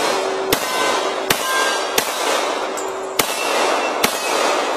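Five .45 ACP pistol shots from a Glock 21 Gen 4, fired at an unhurried pace about a second apart, with a steel target ringing after some of the hits.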